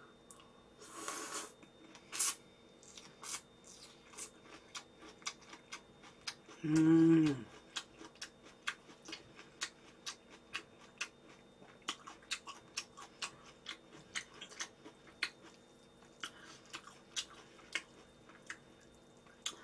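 Close-miked chewing of buckwheat cold noodles and grilled bulgogi: a run of wet mouth clicks and smacks, a couple a second, with a short slurp about a second in and a brief hum about seven seconds in.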